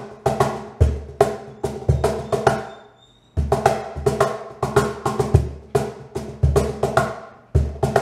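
Hand-played solid birch cajón with internal snares, played in a groove: deep bass tones alternate with sharp slaps whose snares buzz after each hit. The playing stops for about half a second near the middle, then picks up again.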